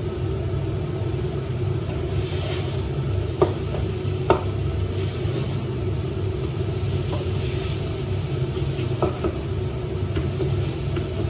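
Eggplant and egg sizzling in oil in a frying pan while a spatula stirs them, knocking sharply against the pan three times, over a steady low hum.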